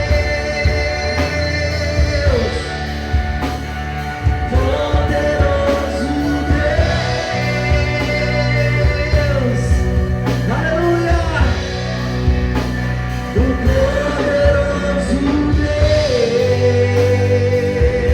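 Live worship band playing a slow praise song, with long sung notes that slide between pitches over bass and a steady drum beat.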